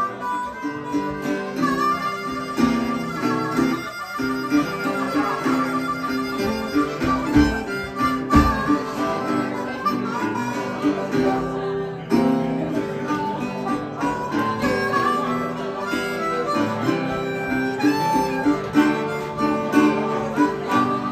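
Live band playing an instrumental break with no singing: acoustic guitar accompaniment under a wavering melodic lead.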